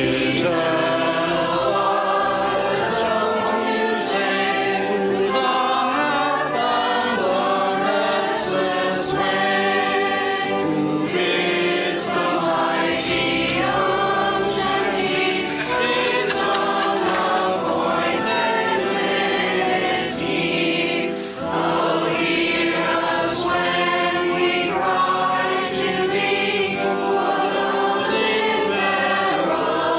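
A choir singing a hymn in harmony, with many voices holding chords that change every second or so.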